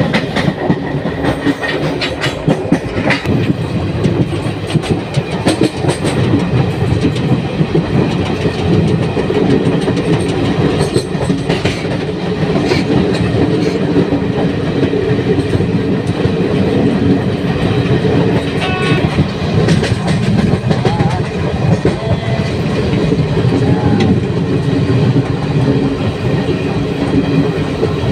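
Express passenger train running at speed, heard from aboard: a steady rumble of wheels on the rails with irregular clickety-clack over the rail joints.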